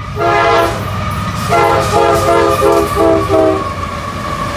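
CSX freight locomotive's multi-chime air horn playing a horn show: one short blast, then a quick string of about five short toots, over the rumble of the passing coal train.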